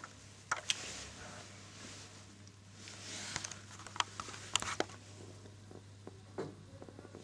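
Lego bricks being handled: a scattering of short plastic clicks and knocks, a few of them sharper around the middle, over a steady low hum.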